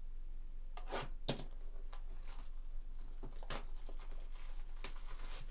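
Plastic shrink wrap being torn off a sealed hobby box of trading cards: a string of short, sharp crackles and rips, heaviest about a second in, over a steady low hum.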